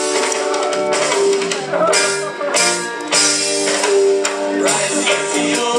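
Roots reggae record playing loud over a sound system, with held melodic notes over a steady beat.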